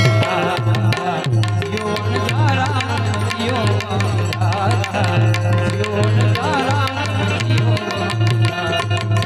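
Instrumental passage of Gujarati folk music: a hand drum keeps a steady beat under a melody line that wavers and slides in pitch.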